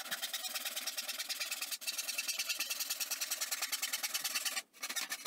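Hand backsaw cutting across a wooden fence picket board in quick, even back-and-forth strokes. The rasping rhythm stops a little before the end as the cut finishes.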